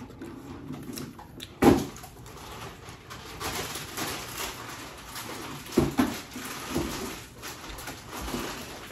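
Eating sounds at a dinner table: chewing and lip smacks on chicken, a plastic bag rustling about three to five seconds in, and two sharp knocks, about two and six seconds in.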